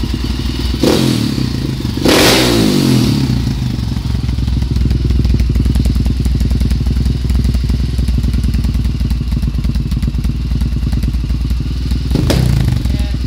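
Vertemati 500 four-stroke single-cylinder motocross engine idling, with sharp throttle blips about one and two seconds in and again near the end, the revs falling back to idle after each.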